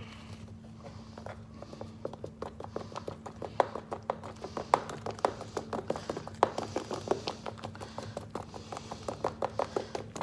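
A utensil stirring and beating thick beer batter in a mixing bowl, clicking against the bowl about four or five times a second from about two seconds in, over a steady low hum.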